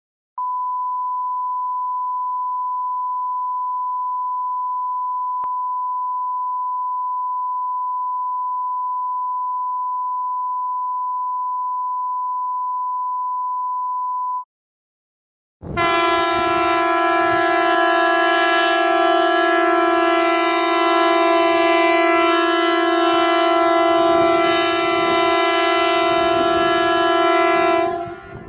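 Emergency alert signal tones. First a single pure steady beep is held for about fourteen seconds and cuts off. After a second's pause comes a louder, harsh horn-like alarm tone with many overtones, held steady until just before the end.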